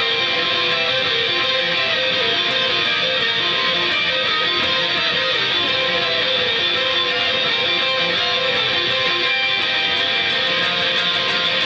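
Electric guitar played continuously, a line of quickly changing picked notes.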